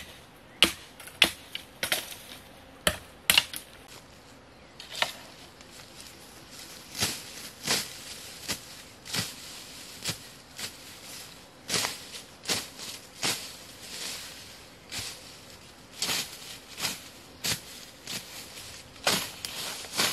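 A few sharp cracks, then a steady run of blade strikes, a little more than one a second, as a machete chops through ferns and grass into the soil.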